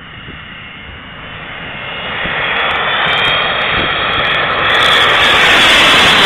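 Fixed-wing aircraft on landing approach flying in low, its engine noise a dense rush with a faint high whine, growing steadily louder to its loudest near the end.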